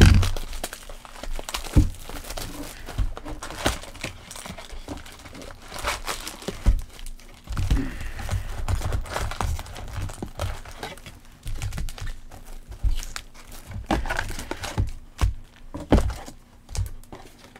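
Plastic shrink wrap being torn and peeled off a cardboard trading-card box, crinkling, mixed with knocks and thumps as the box is handled and opened.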